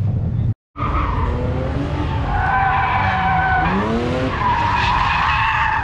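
Car drifting with its tyres screeching in a long, loud squeal, its engine revs dipping and then climbing about halfway through. The sound starts after a brief silent gap near the start.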